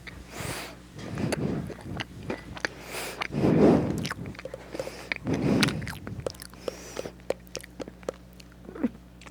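Crisp fries being bitten and chewed close to the microphone: many sharp crunches, with a few louder, muffled swells in between.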